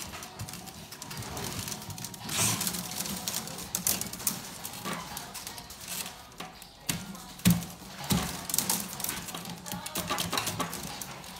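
Willow rods and a thick rope rustling, creaking and clicking as a rope handle is worked through the woven willow border of a basket by hand, with two sharper knocks about two-thirds of the way through.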